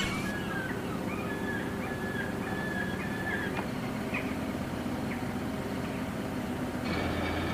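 Outdoor street ambience: a steady low rumble of traffic or an engine, with thin high chirping bird calls over it in the first half. Near the end a louder engine hum comes in.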